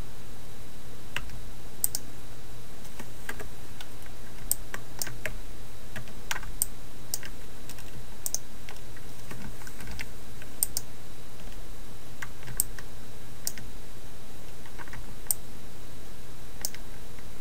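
Irregular clicks of computer keyboard keys and a mouse, one or two a second, over a steady hiss and low hum.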